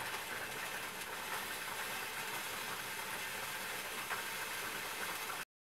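A pot of yukgaejang (spicy beef stew) simmering on the stove, a steady hiss that cuts off suddenly near the end.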